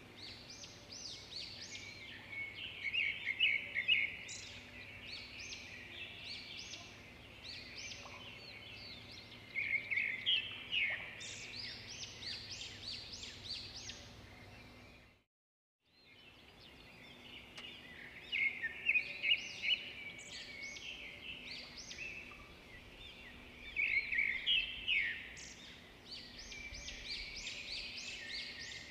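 Songbirds chirping and trilling in quick bursts, busier at times and sparser between. The birdsong cuts out for about a second midway, then the same pattern of chirps starts again, like a looped birdsong track.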